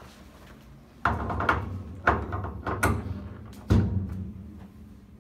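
Four sharp thuds on a chiropractic treatment table, about a second apart, each trailing off in a short rattle.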